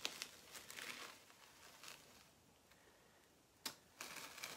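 Sticky adhesive Chalk Couture silk-screen transfer being peeled off a chalkboard, a crackling rustle as it pulls away from the board. The peeling comes in short stretches in the first two seconds, then goes quiet, with a sharp snap a little before four seconds in and more peeling after it.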